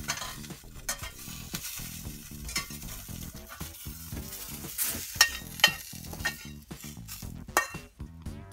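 Chopped onion frying and sizzling in a stainless steel frying pan, stirred with a metal utensil that clicks and scrapes against the pan, with the sharpest clinks about five to six seconds in.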